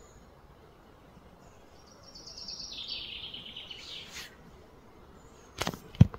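A songbird's rapid trill of about two seconds, stepping down in pitch, over steady outdoor background noise. Near the end come two sharp clicks a split second apart, the second one loud.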